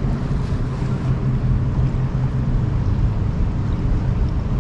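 Steady low hum of a boat motor, with wind and moving water on the microphone.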